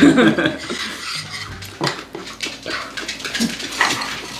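Table eating sounds: chopsticks and spoons clicking and knocking against plates and bowls, with chewing. A short burst of laughter comes at the very start.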